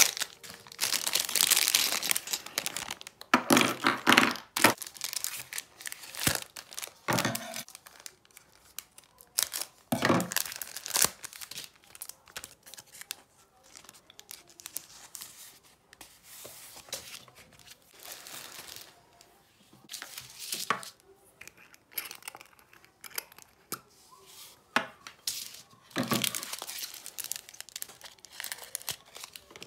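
Plastic packaging crinkling and tearing as it is handled and opened by hand, in irregular bursts, with occasional small clicks and knocks of glass jars and metal screw lids.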